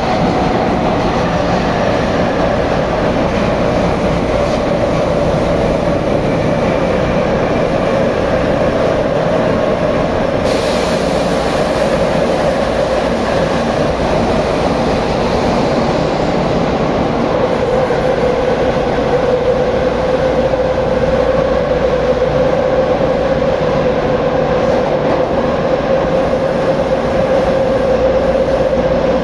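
Tobu 9050 series electric train running at speed, heard on board: a steady rolling rumble with a motor whine that sinks slightly in pitch over the first few seconds and then holds steady.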